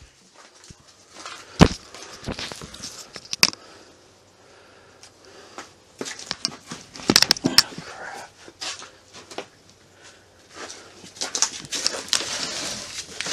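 Irregular knocks, clicks and rustling from something being handled and moved about at close range, with a sharp knock about one and a half seconds in, a few more in the middle, and a busier stretch of rustling near the end.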